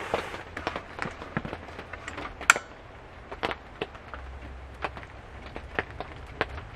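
Raindrops tapping irregularly on a van's metal roof, with one sharp click about two and a half seconds in.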